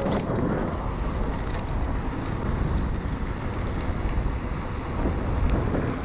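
Steady wind noise buffeting a GoPro Hero 6 Black's microphone, mixed with the low rumble of mountain-bike tyres rolling on a paved trail.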